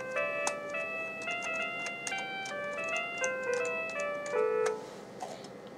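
Acoustic-bass voice of a Crystal FM synthesis sound card playing a run of single notes one after another, each note started by a click of a computer key. The notes stop about five seconds in, and a few key clicks follow.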